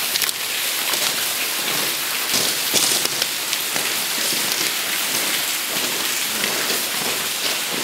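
Water dripping and trickling from a tunnel roof: a steady, rain-like patter with a few sharper drop ticks.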